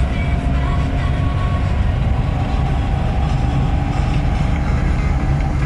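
Moskvich 412 under way, heard from inside: a steady low engine and road rumble from its four-cylinder engine, with a faint steady whine over it.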